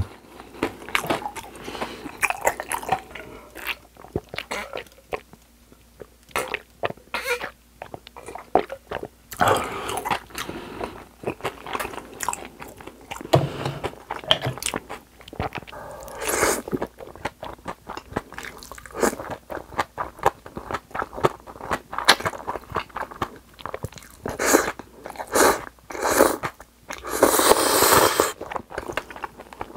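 Close-miked chewing of crispy fried cutlet and cold spicy noodles: irregular crunching and wet chewing, mouth close to the microphone. Near the end comes a longer, louder stretch as a mouthful of noodles is slurped in.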